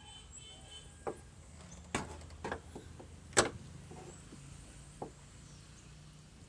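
Hands checking the cable terminals on a car battery: a handful of sharp clicks and knocks, the loudest about three and a half seconds in, over a low steady hum.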